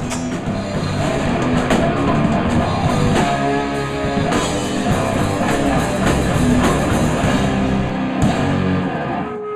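Heavy metal music with electric guitars and a drum kit, playing steadily, with a brief drop just before the end.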